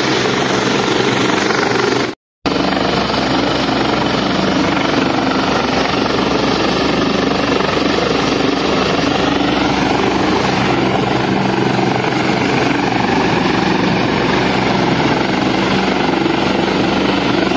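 Helicopter sitting on a landing pad with its turbine running and rotor blades turning, a steady, loud whine and rotor beat. The sound drops out briefly about two seconds in.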